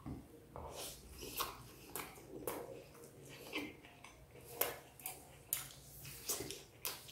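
Eating by hand from a ceramic plate: an irregular run of short clicks and smacks, about two a second, from fingers on the plate and chewing.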